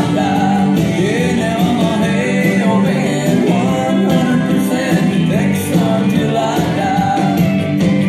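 A recorded song playing: a singer's melody over a backing band.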